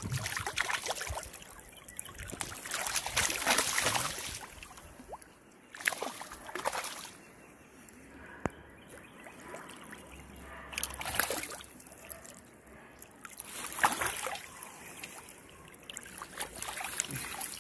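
Shallow stream water sloshing and splashing in irregular surges a few seconds apart, over the trickle of the flowing stream.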